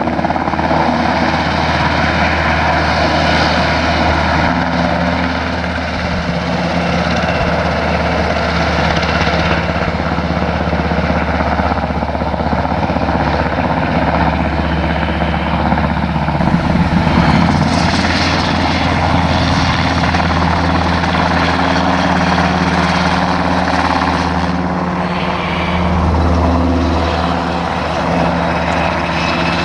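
Military helicopters flying low overhead: loud, steady rotor and engine noise that swells a little about halfway through and again near the end.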